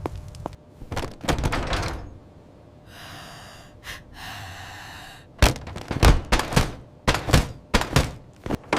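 A run of loud, sharp knocks and thuds, about ten of them close together in the last three seconds or so. They come after a couple of softer hissing swishes.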